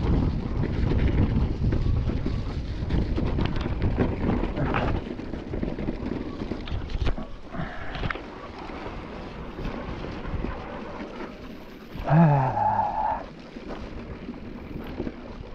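Wind buffeting the microphone, loud for the first five seconds and weaker after, with one short pitched call about twelve seconds in.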